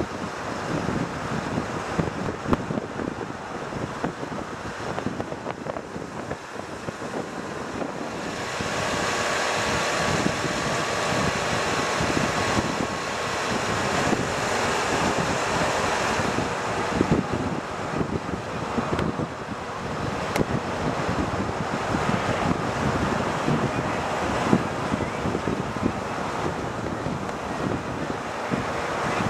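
Wind buffeting the microphone over the road noise of a vehicle moving along a paved road, a steady rushing that grows louder about eight seconds in and eases again after about seventeen seconds.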